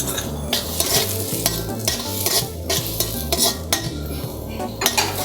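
A spatula stirring and scraping in a wok, with irregular scrapes and knocks, over the sizzle of chopped onions and crushed garlic frying in oil.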